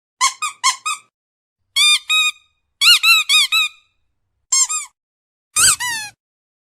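High-pitched squeaks in five quick bursts of three to five squeaks each, every squeak rising and falling in pitch, with silent gaps between bursts. The last burst is the loudest and carries a low thump.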